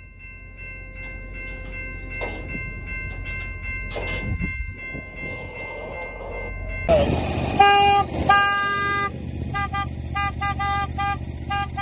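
A railroad air horn sounding. It holds a steady chord at first, then about seven seconds in it turns louder with hissing air and breaks into a quick run of short toots.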